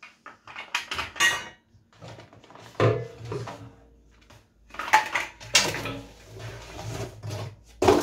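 Plastic parts clattering and knocking against the inside of a stainless steel vacuum drum as they are handled and lifted out. The louder knocks leave the drum ringing briefly.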